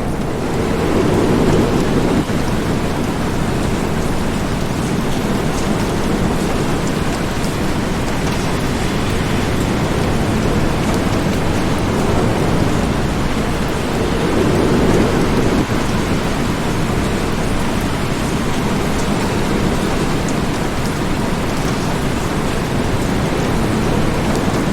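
Steady heavy rain falling, with low rolling thunder swelling up twice: about a second in and again about two-thirds of the way through.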